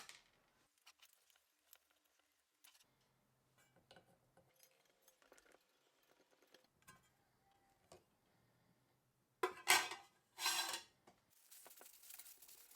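Small metal fan parts and tools clinking and clicking while being handled, with two louder harsh scraping or rustling bursts near the end, followed by a faint hiss.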